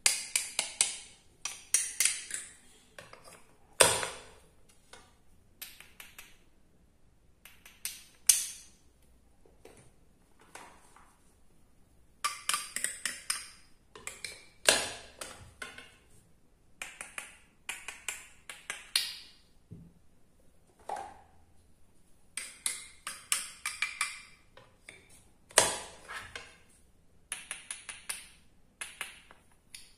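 Toy plastic fruit and vegetables cut apart with a toy wooden knife on a plastic cutting board: irregular clusters of sharp clicks, taps and short scrapes as the knife strikes and the pieces separate and are set down.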